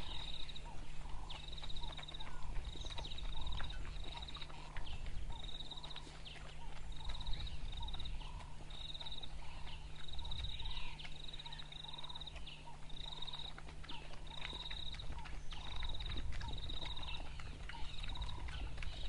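African wild dog pups lapping water together: a running patter of quick, irregular wet clicks. Behind them a high trilling call repeats about once a second.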